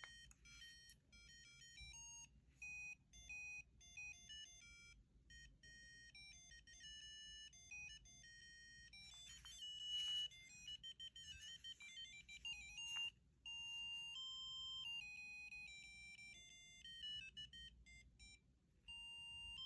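BlackBerry 7520 ringtone playing faintly: a quick synthesized melody of short electronic notes, with percussive hits through the middle.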